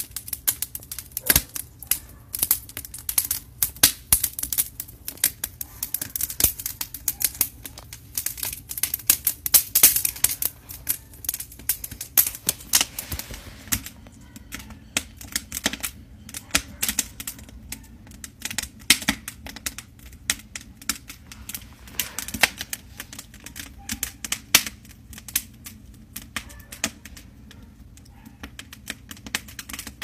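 Cedar wood burning in an open fire pit, crackling with a dense run of irregular sharp pops, busiest in the first half and thinning out toward the end.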